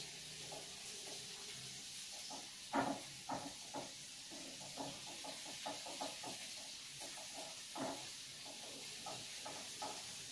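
Food frying in hot oil in a wok, with a steady sizzle. A spatula scrapes and knocks against the pan in short, irregular strokes, the loudest knock about three seconds in.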